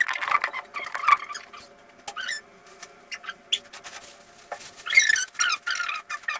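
Rustling and handling noises: clusters of crackling from a plastic bag being handled, loudest around the start and again about five seconds in, with a few light knocks.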